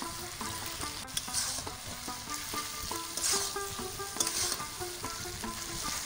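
Spatula stirring fried fish pieces through thick chilli sauce in a metal kadai: repeated scraping swishes against the pan over a steady sizzle. A soft plucked-note background melody plays underneath.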